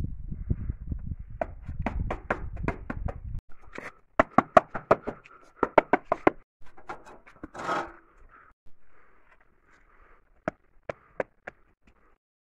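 Hands knocking and tapping foam facade cladding panels being pressed into place on a wall: a quick run of sharp knocks, several a second, from about four seconds in, a short scrape about eight seconds in, and a few single knocks near the end. A low rumble runs under the first three seconds.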